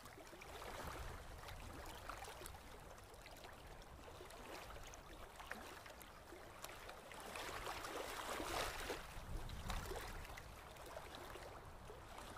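Small waves washing up a sandy beach: a steady hiss of surf that swells louder about two-thirds of the way through.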